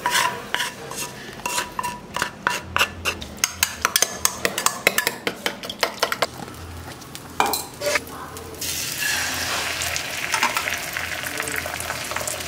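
A spoon beating eggs with chopped onion and green chilli in a small steel bowl, clinking quickly and repeatedly against the metal. About two-thirds of the way through, the egg mixture goes onto a hot iron tawa and starts sizzling steadily.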